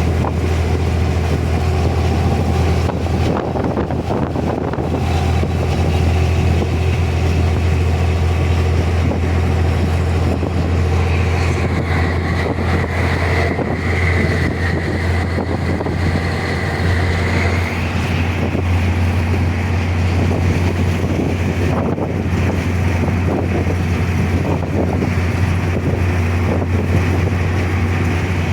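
Volvo B10M bus's six-cylinder diesel engine running with a steady deep drone. For several seconds in the middle, a high whine rises over it and then fades.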